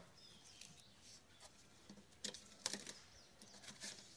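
Handling noise from the plastic parts of a solar insect light trap: a series of light knocks, clicks and rustles as the lamp unit and its funnel are picked up, with faint bird chirps near the start.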